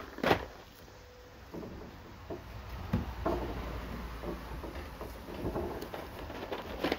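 Puppies scuffling and scrambling on wooden deck boards: scattered knocks and scratchy scrapes of paws and bodies on the wood, with one sharp knock just after the start.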